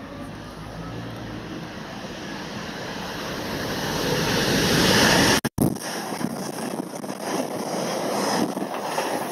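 Freightliner Class 66 diesel locomotive approaching and passing close at speed, its engine and rolling rumble growing louder to a peak about five seconds in. The audio drops out briefly, then a string of container wagons rattles by with clattering wheels and wind rush.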